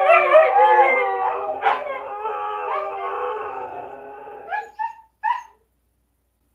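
Siberian huskies howling together: several long, wavering howls overlap, then fade out about four and a half seconds in. A few short, separate calls follow.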